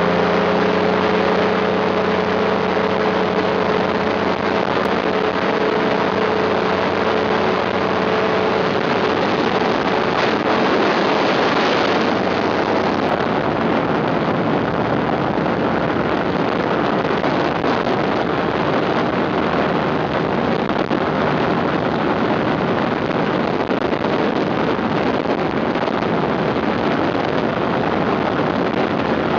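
Ultralight aircraft engine running with a steady pitched drone, which fades after about nine seconds under a dense, even rushing noise.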